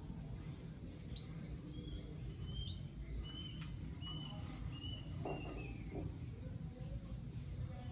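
Lovebirds chirping: two high, arched chirps about a second and a half apart, followed by a run of fainter short chirps.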